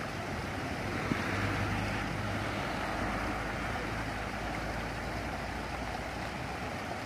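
Steady rush of water spilling over rocks into a fishing pond, with a low rumble of wind on the microphone.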